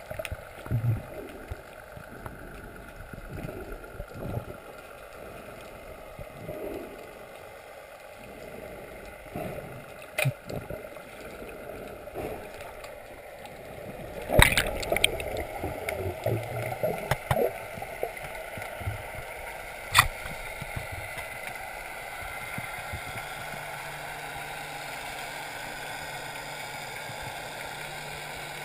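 Muffled underwater water noise with gurgling, broken by sharp clicks and knocks: a cluster about halfway through and a single loud click about two-thirds of the way in. A steady low hum sets in during the second half.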